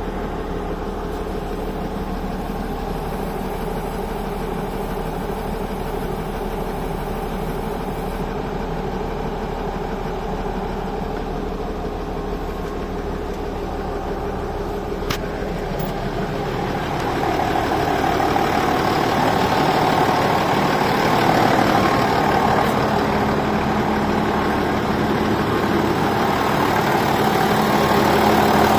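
Fiat 180-90 tractor's freshly rebuilt six-cylinder diesel engine idling steadily. It is heard first from inside the cab, with one sharp click about halfway through. It grows louder and fuller from a little past halfway, heard close at the open engine bay.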